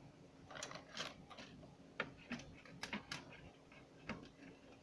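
Faint, irregular clicks and snaps, about six in all, of crackers being broken in half and laid in a baking pan.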